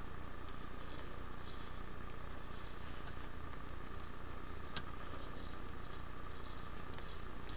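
Potentiometer wiper scraping along its thin-film polymer track as the pot is turned by hand, picked up by a microphone pressed against its body: a string of short, irregular scratchy rasps over a steady hum, with one sharp click about five seconds in. The pot turns stiffly in this direction, and the owner judges it faulty and in need of replacement.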